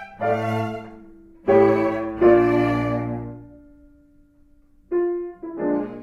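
Background music with string and piano sounds: a few held notes that start sharply and fade out, then a short pause before new notes begin near the end.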